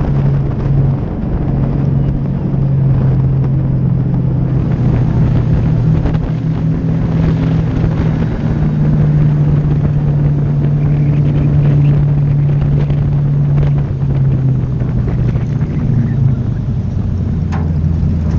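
Pure stock race car engine running steadily at speed, heard from inside the car with wind rushing past. The engine note rises about halfway through and eases back down a few seconds later as the throttle changes.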